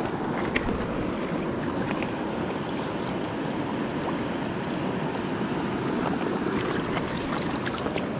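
Creek water rushing steadily, with a few faint ticks.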